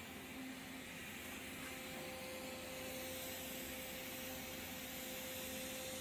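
Steady machine hum with an even hiss.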